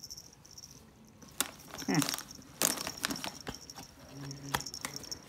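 Handling noise from a phone moved against a plush holiday toy: scattered clicks, knocks and soft rustles, with a faint high steady whine that comes and goes.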